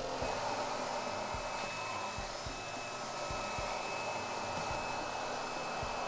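Xiaomi Roidmi F8 cordless stick vacuum running steadily, vacuuming sand off a tiled floor: an even rushing motor-and-airflow noise with a thin high whine. Soft low knocks come every half second or so.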